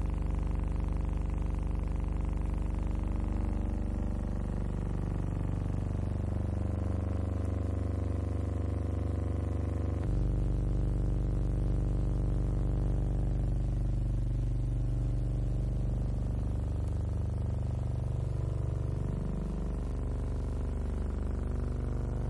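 Piston engine of a WWII German helicopter running steadily, its pitch drifting slowly up and down, with an abrupt change in the sound about ten seconds in.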